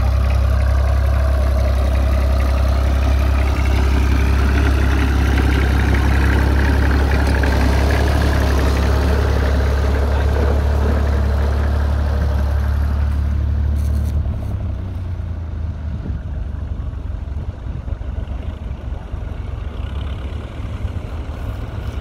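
A Ferguson TEF20 tractor's four-cylinder diesel engine pulling a plough: a loud, steady, low engine sound at close range that drops away about two-thirds of the way through, leaving a fainter, rougher engine sound.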